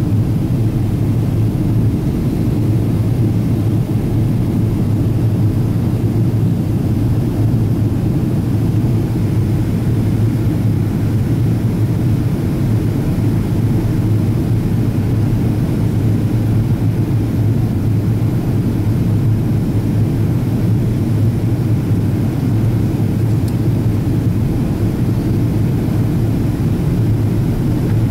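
Steady in-flight cabin rumble of a Boeing 777-200ER airliner, a deep, even drone of engines and airflow heard from a window seat behind the wing.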